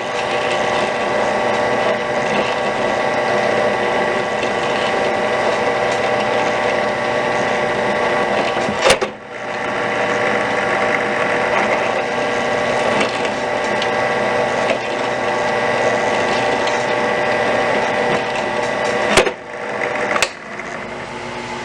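Drill press motor running steadily with a large bit drilling into a soggy burrito. There is a sharp click and a brief dip about 9 seconds in, then more clicks near the end, after which the running sound is quieter.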